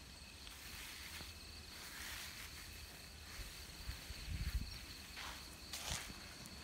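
Night insects trilling steadily in a high, even tone, with brief rustles. About four seconds in there are low rumbling thumps from the phone being handled.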